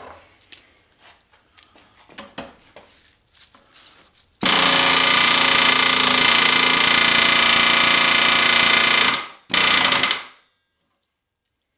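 Pneumatic air hammer running in one long burst of about five seconds, then a short second burst, driving a socket against a stuck part of a small lawnmower engine to break it loose. A few light clicks of tools being handled come before it.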